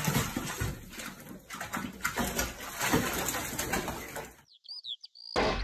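Water splashing as a cat thrashes and scrambles in a filled bathtub. The splashing stops about four seconds in, and a few short high chirps follow.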